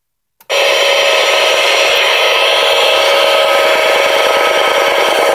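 Clock radio switched on with a click about half a second in, then loud, steady static hiss from its speaker, with a few faint whistling tones in it, as it sits tuned between stations.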